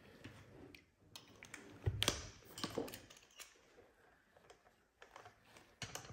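Light metallic clicks and taps of a piston wrist-pin retaining clip and its installation tool being worked by hand, with one louder knock about two seconds in.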